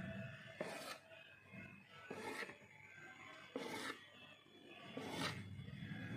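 Knife cutting a rolled log of maida dough into one-inch pieces on a plate: four short scraping cuts, about one every second and a half.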